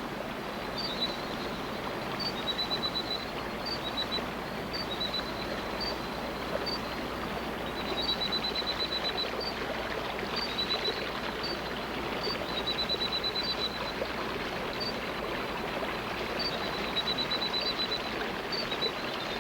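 Steady rush of running water, with a high-pitched animal call over it: short trains of rapid chirps repeating every couple of seconds, and single high clicks about once a second.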